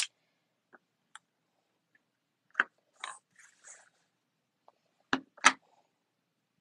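Scattered clicks and knocks of a clear acrylic stamp block being handled and set down on paper on a tabletop, with a short soft rustle of paper about three seconds in; the loudest pair of knocks comes a little after five seconds.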